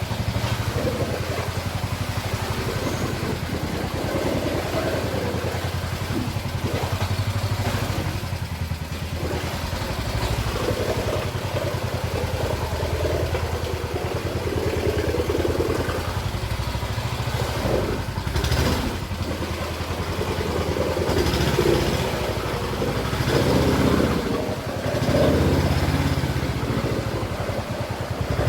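Motorcycle engine running under way, its sound swelling and easing with the throttle.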